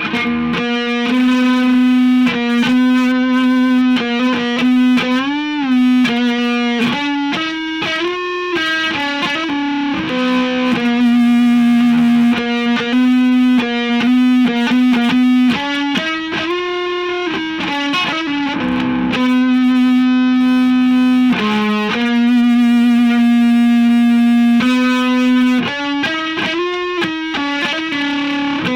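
Electric guitar played through overdrive distortion: a single-note lead line with long sustained notes, upward string bends and a wavering vibrato on a held note.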